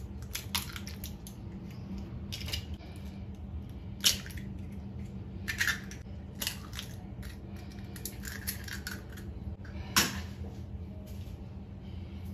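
Eggshells tapped and cracked open against the rim of a ceramic bowl: several separate sharp cracks spread out, with a steady low hum beneath.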